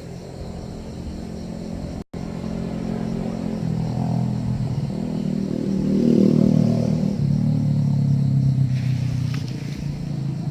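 A motor engine running steadily, growing louder toward the middle and then easing off slightly. It cuts out briefly about two seconds in.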